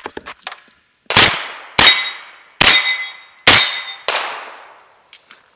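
Five shots from a JP GMR-13 9mm carbine, each under a second apart, several followed by the ringing clang of hit steel targets. A few light clicks come just before the first shot.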